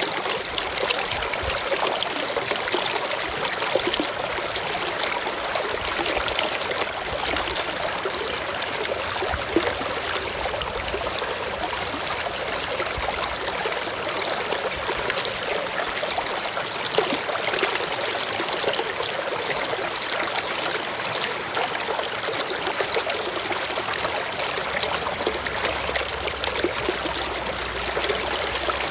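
Water in a small stream running steadily, an even trickling and babbling without pause.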